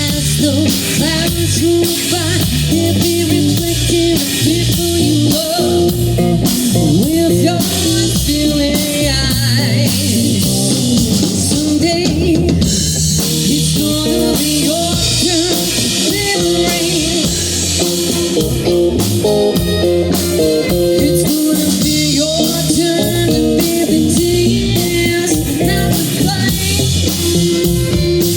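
Blues band playing: electric guitar over drum kit and bass, with a steady beat of drum hits.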